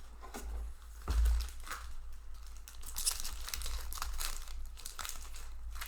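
Foil wrapper of a Magic: The Gathering booster pack crinkling and tearing as it is opened by hand, with irregular crackles and a louder rip about a second in.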